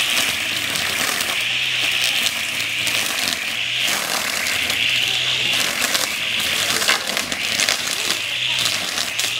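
Homemade battery brush cutter driven by a car AC blower motor, its trimmer head spinning through grass with a steady high whine that swells and dips as it is swept back and forth, and frequent crackling ticks of grass and debris being struck.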